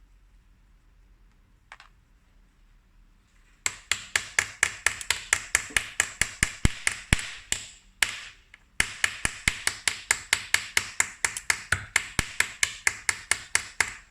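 Rapid, regular tapping on a hard surface, about four to five sharp taps a second, starting a few seconds in and pausing briefly near the middle.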